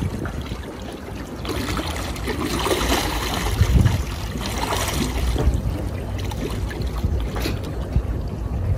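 Water sloshing and splashing as a large Mekong giant catfish is held and released in shallow water, busiest in the middle few seconds.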